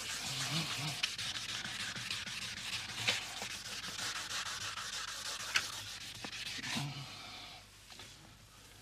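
Hand sanding of a stucco marble (scagliola) surface: quick, irregular rubbing strokes of abrasive on the hardened gypsum, dying away about seven seconds in.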